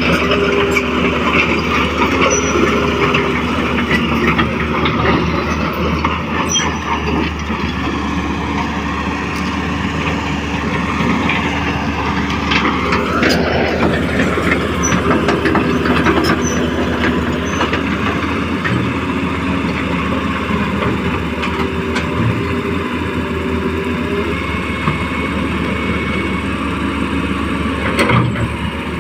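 Radio-controlled excavator's motors and hydraulic pump running steadily under load, with a whine that dips and then climbs sharply about halfway through, and scattered clicks.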